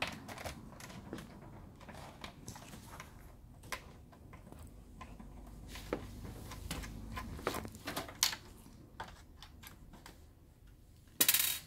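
Scattered light clicks and scrapes of a screwdriver working screws in the plastic back casing of an all-in-one PC, with a short loud clatter near the end.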